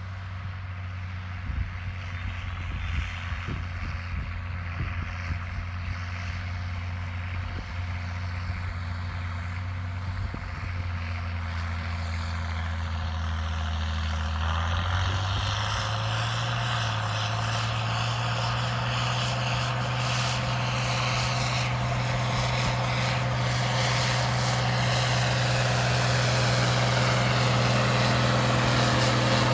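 International Harvester 5488 tractor's turbocharged six-cylinder diesel running under load while pulling a field implement, growing steadily louder as it approaches. Its steady hum steps up slightly in pitch about halfway through.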